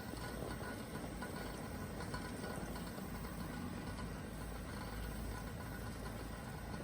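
Steady low rumble and hiss of a running vehicle, like road noise in a moving car.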